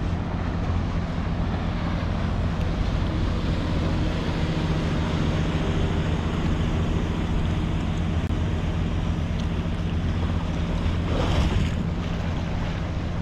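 A sailboat's inboard diesel engine running steadily under way, a constant low drone, mixed with water noise from the boat's passage and wind buffeting the microphone.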